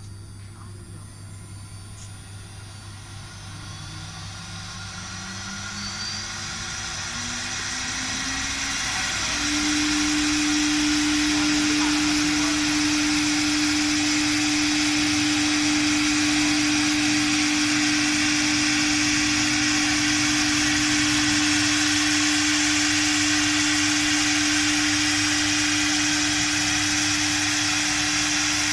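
Spindle of a STARMA 1325 wood CNC router spinning up with a rising whine for about seven seconds, then holding a steady high whine as it runs at working speed and cuts into a wooden board, with a hiss of cutting over a low machine hum.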